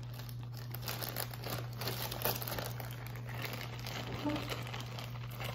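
Plastic snack bag crinkling continuously as it is handled and rummaged through by hand.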